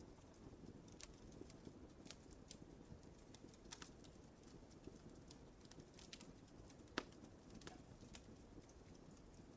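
Wood fire crackling softly: irregular small snaps and pops over a low steady rumble, with one sharper pop about seven seconds in.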